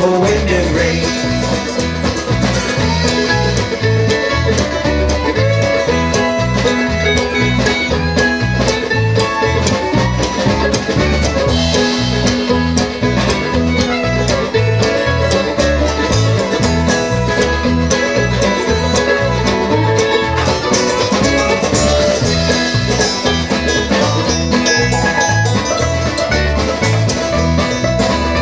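Live bluegrass band playing an instrumental break: banjo, acoustic guitar and fiddle together at a steady tempo, with no singing.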